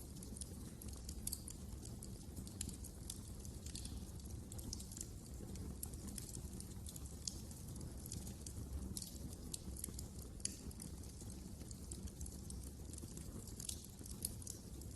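Wood fire burning in a fireplace: irregular sharp crackles and pops over a steady low rumble of flame.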